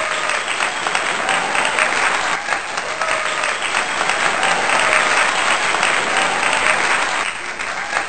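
Crowd applause: many hands clapping steadily and densely. The same few seconds of clapping, with its faint short tones, recur about every three seconds, like a looped applause track.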